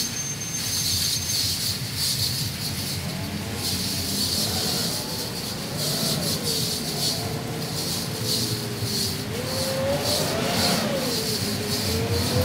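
High-pressure spray from a self-serve car wash wand, a steady hiss that flickers as the jet moves, with a melodic line slowly rising and falling underneath.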